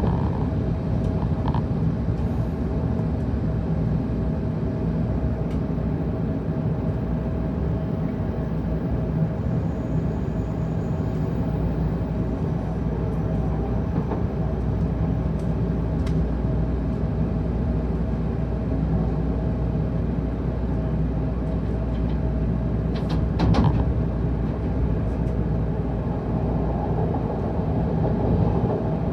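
Steady running noise heard inside a Tokaido Shinkansen passenger car at speed: a continuous rumble with faint steady tones, with a brief louder rush about two-thirds of the way through.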